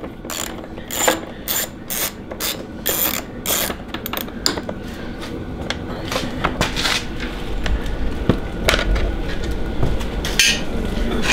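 A quarter-inch ratchet with a Torx bit on an extension, clicking in runs of short, sharp clicks as it backs out the screws holding a snowmobile's plastic hood.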